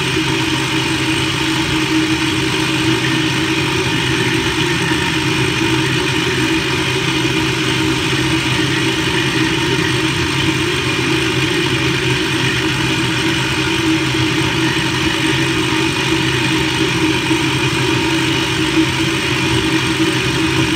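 Countertop blender running steadily, its motor blending a green smoothie in the jar.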